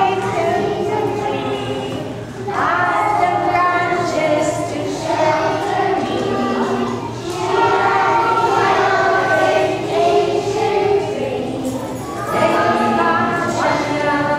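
A group of young children singing a song together, in phrases a few seconds long with short breaks between them.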